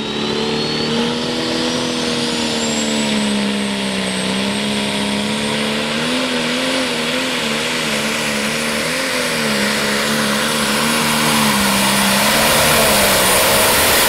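Turbocharged pulling tractor engine at full power under a sled's load, its note wavering up and down in the middle of the run. A thin high whine above it climbs steadily in pitch, and the engine grows slightly louder near the end.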